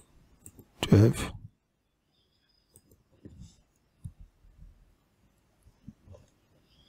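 Sparse, faint clicks of a computer mouse and keyboard keys, a few separate taps spread over several seconds.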